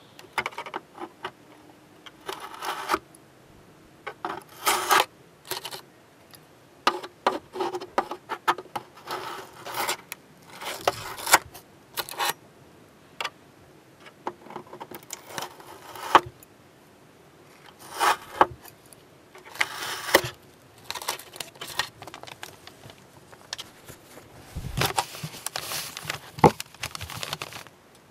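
Metal tweezers clicking and scraping against the plastic hull of a ship model as masking tape is peeled off and crumpled, in short irregular bursts. Near the end, a longer rustle as a cloth is handled and spread out.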